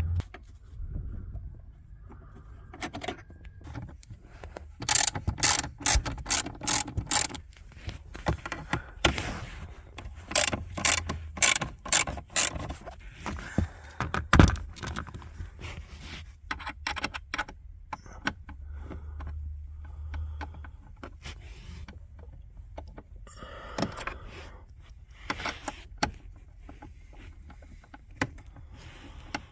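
A ratchet driving a Torx bit clicks in quick bursts as the console's Torx bolts are backed out. A single sharp knock about halfway through is the loudest sound, and scattered small clicks and handling noises follow.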